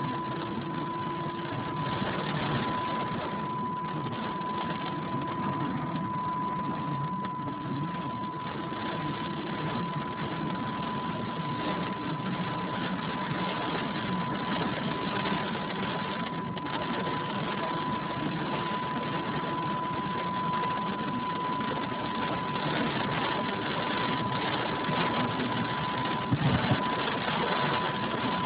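Car driving on a rain-soaked road, heard from inside the cabin: a steady rush of rain and tyre spray over the engine's hum, with a constant high-pitched tone throughout. A short knock about two seconds before the end.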